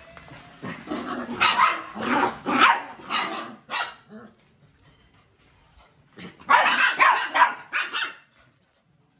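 Puppies barking during rough play: a quick run of about six barks, a pause of two seconds, then a second run of about five barks, dying away near the end.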